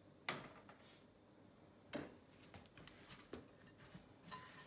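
Faint stirring of a sticky oat, nut and date mixture in a bowl with a spatula: soft scraping with a few light knocks of the spatula against the bowl, the clearest near the start, around two seconds in and just after three seconds.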